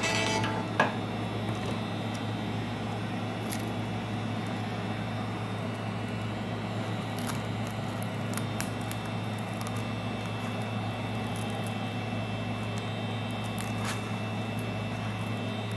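Heat gun running with a steady blowing hum, softening the adhesive under the iPad 2's glass. A few faint clicks of tools on the glass come through it.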